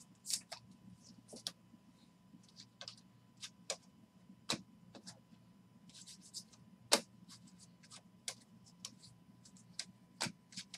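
A stack of baseball trading cards being flipped through by hand, card after card slid off the stack: irregular light clicks and brushing, with sharper snaps about four and a half and seven seconds in.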